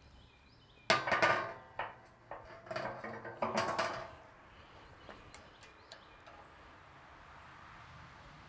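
Metal clanks and rattles with a ringing tail from the steel drum, lid and hanging rods of a Pit Barrel Cooker being handled, a handful of knocks from about one to four seconds in.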